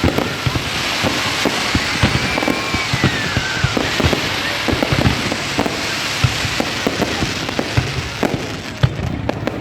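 Fireworks display: a steady dense crackle with many sharp bangs going off in quick succession. A faint whistle rises slightly and then falls in pitch about two to four seconds in.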